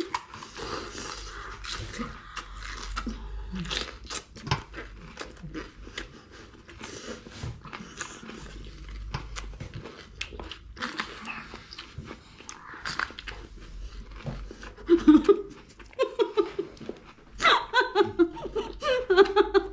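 Two people biting and chewing raw red bell pepper, with many crisp, wet crunches throughout. Laughter and vocal sounds come in over the last few seconds.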